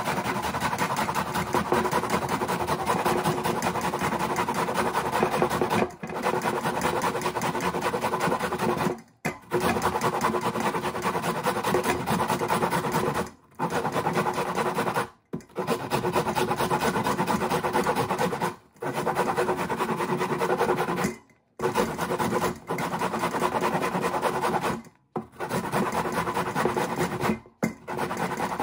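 Onion being grated on a stainless steel box grater: a rapid, continuous rasping of back-and-forth strokes, broken by short pauses every few seconds.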